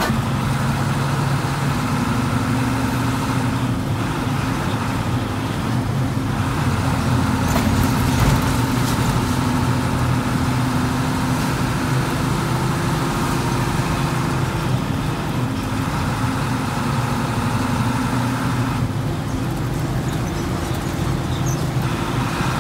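Hino AK-series bus's diesel engine running under way, heard from inside the cabin: a steady engine drone that drifts a little in pitch with speed, mixed with road and traffic noise through the open windows.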